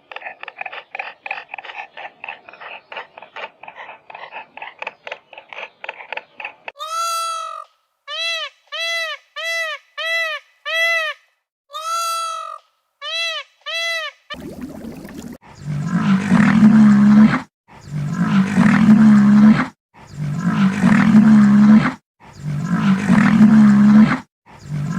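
A sequence of animal calls: a fast run of chattering pulses, then a string of short, arched, high-pitched calls, then four long, deep roars of about two seconds each, the loudest part.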